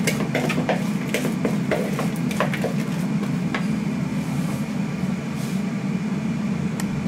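Wooden spoon stirring chopped onion in a bowl, with light clicks and scrapes against the bowl that stop a little over halfway through. A steady low hum runs underneath throughout.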